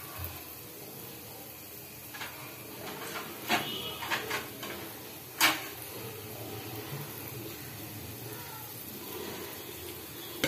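Sweet dumplings deep-frying in oil in a metal pan, a steady soft sizzle. A few sharp clicks and knocks come in the middle, the loudest about five and a half seconds in.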